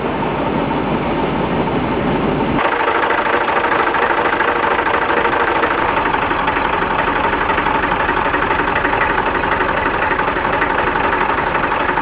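Tractor engine running steadily at idle, with a fast even knock in its note. About two and a half seconds in the sound changes abruptly to a brighter, more rattly engine note.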